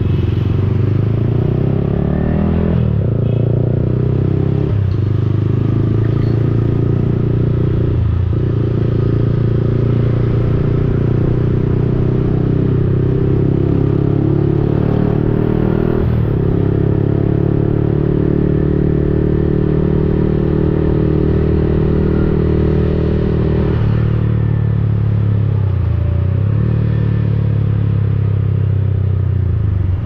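Yamaha XSR155's single-cylinder four-stroke engine through an aftermarket Akrapovic-replica exhaust, ridden under way. The engine note climbs and then drops sharply several times as the rider shifts up through the gears, holds fairly steady for several seconds, then falls as it eases off near the end.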